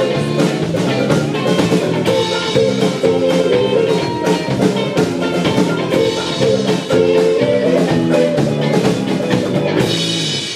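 Live band playing loudly, drum kit and guitar with a steady beat, the music dropping away right at the end.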